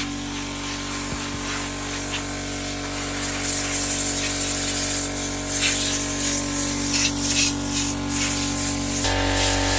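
Compressed air hissing in repeated surges as it is blown through a reusable furnace filter to clean out the dirt, over a steady machine hum from the air compressor. The hum changes abruptly near the end.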